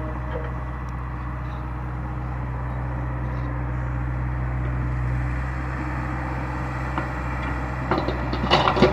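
Heavy diesel earthmoving machinery running steadily, most likely the JCB 145 NXT excavator's engine. It ends in a burst of clanking and rattling about eight seconds in.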